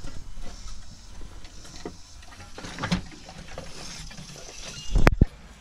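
Scattered clicks and clatter of hand tools on metal under a car's hood, over a low rumble of wind on the microphone, with a loud double knock about five seconds in.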